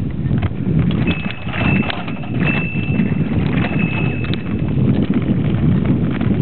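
Bicycle rattling and clattering as it is ridden over a rough, bumpy dirt track, with many sharp knocks over a steady rumble. A thin high-pitched squeal comes and goes several times.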